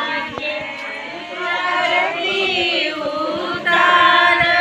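A group of women singing together in chorus, their voices overlapping, getting louder near the end.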